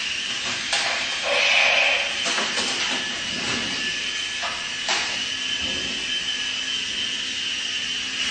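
Mini RC helicopter's small electric motors and rotors whirring in a steady high whine, with a louder rushing swell about one and a half seconds in and a few light clicks.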